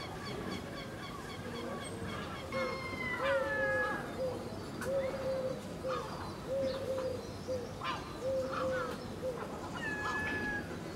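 Herring gulls calling: a run of short low calls repeated two to three times a second from about two seconds in, with higher drawn-out falling calls about two and a half seconds in and again near the end.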